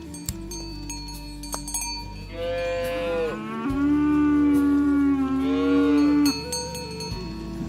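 An ox mooing in a loud, drawn-out call of about four seconds that starts about two seconds in, with cowbells clinking and ringing.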